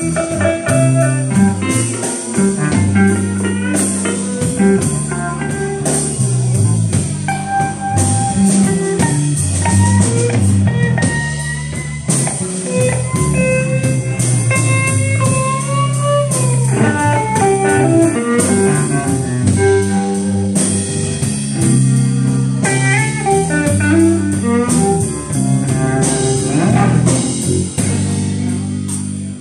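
Live blues band playing: a Stratocaster-style electric guitar plays lead lines with held, bent notes over bass guitar and a drum kit.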